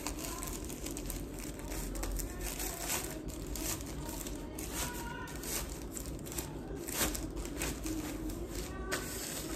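A plastic bag crinkling and rustling in irregular bursts as clothes are handled and slid into it.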